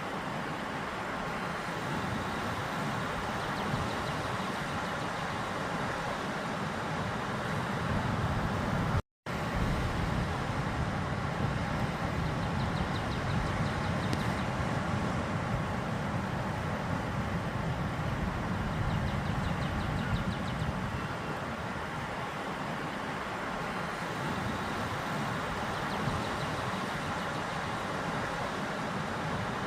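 Ocean surf on a beach: a steady rushing wash of waves that swells and eases over several seconds, broken by a split-second dropout about nine seconds in.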